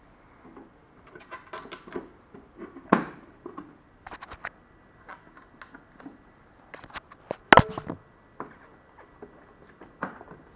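Hands handling a DeLonghi PrimaDonna XS espresso machine and its clear plastic parts: scattered plastic clicks and knocks, with a loud sharp knock about seven and a half seconds in that rings briefly.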